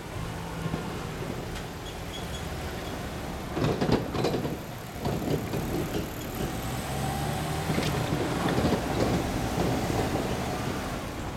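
Vehicle noise: engines running steadily, with a few louder swells and a steady whine that comes in about halfway through.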